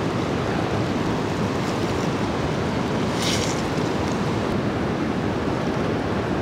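Steady rush of a river flowing over rocks, with fish pieces sizzling in shallow oil in a cast-iron skillet. A brief hiss about three seconds in.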